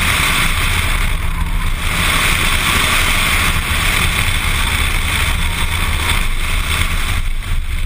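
Corvette V8 engine and exhaust pulling hard during an autocross run, mixed with tyre roar and wind rushing over an outside-mounted camera. The rushing hiss eases briefly about a second in and again near the end.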